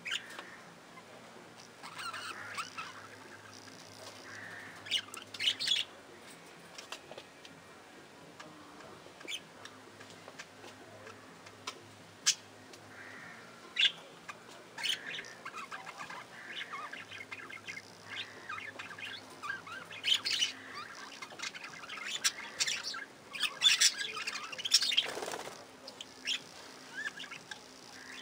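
A flock of budgerigars chattering: scattered short chirps, warbles and sharp squawks from many birds, growing busier in the second half.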